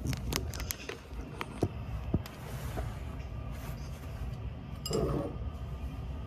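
Handling noise from a phone being set down and shifted on a kitchen countertop to film: a quick run of clicks and knocks in the first two seconds, then a low rumble with a brief rustle about five seconds in.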